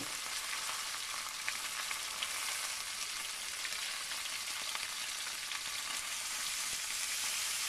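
Chicken pieces frying in hot olive oil in a non-stick pan: a steady sizzling hiss with a few small pops of oil. It grows a little louder near the end as lemon juice is poured into the hot pan.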